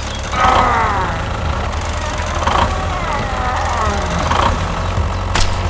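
A small engine runs with a steady low rumble. Squeaky, gliding voice-like chatter sounds over it twice, and there is a sharp click near the end.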